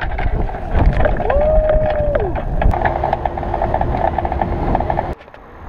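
Wind buffeting the microphone of a bicycle-mounted camera while riding, over a rumble of road noise. A short tone rises and falls about a second in, and the noise drops sharply about five seconds in.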